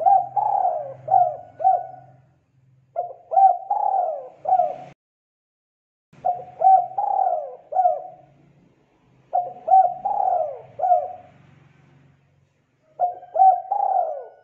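Spotted dove cooing: five repeated phrases of three or four coos each, one starting about every three seconds.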